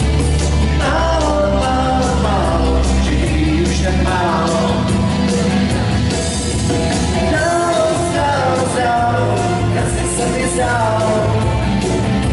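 Live dance band playing with a singer: a sung melody over keyboards and a steady beat.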